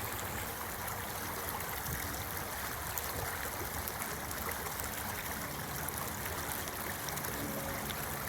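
Steady rushing and trickling of flowing stream water.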